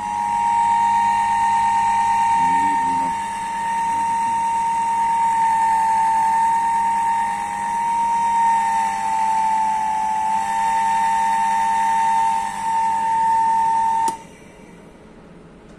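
Three-phase induction motor running on single-phase power through a speed regulator, turned down low, giving off a steady high whine that wavers slightly in pitch and cuts off suddenly about 14 seconds in, when the motor is switched off.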